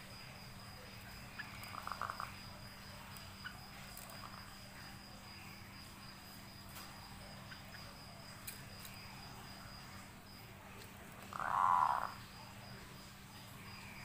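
A caged yellow-vented bulbul gives two short calls: a faint one about two seconds in and a louder one, under a second long, about three quarters of the way through. A faint steady high whine and a few light clicks sit underneath.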